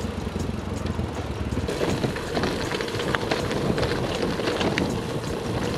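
Wind buffeting the handlebar-mounted camera's microphone over the noise of tyres rolling on a wet, rough track. Many small clicks and rattles come from the loaded gravel bike jolting over the surface.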